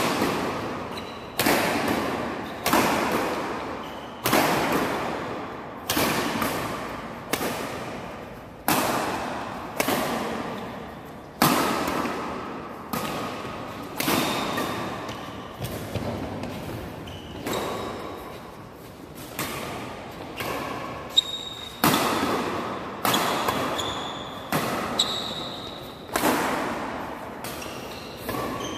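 Badminton rackets striking the shuttlecock in a fast doubles rally, with a sharp hit roughly every second and a half. Each hit echoes in the large hall.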